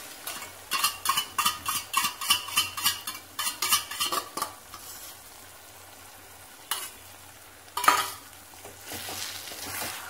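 A steel spoon clinking and scraping quickly against a steel bowl, about four or five strokes a second, as beaten egg is scraped out into a hot pan. Then the egg sizzles softly, with two sharp knocks and a wooden spatula stirring near the end.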